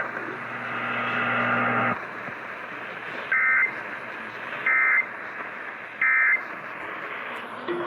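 Emergency Alert System end-of-message data burst sent three times over radio hiss: three short two-tone warbling chirps about a second and a half apart, marking the end of the weather warning. A steady hum fades out about two seconds in, before the first chirp.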